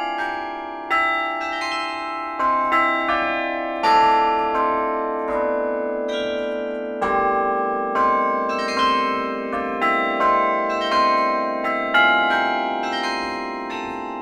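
A carillon played from its baton keyboard: a tune of struck tower bells, a few notes a second with chords beneath, each bell ringing on and overlapping the next.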